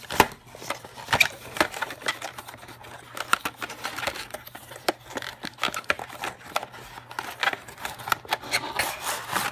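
Thin cardboard packaging handled by hand: a paperboard box and its folded insert rubbed, tapped and slid apart, making a dense run of small clicks and scrapes.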